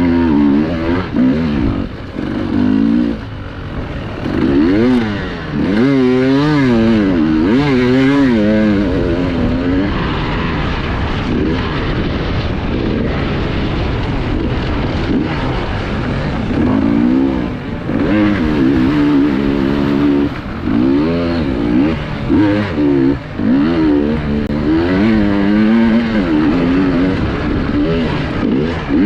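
Enduro motorcycle engine heard from the rider's onboard camera, revving up and down over and over as the throttle is worked. It holds steadier from about ten to sixteen seconds in.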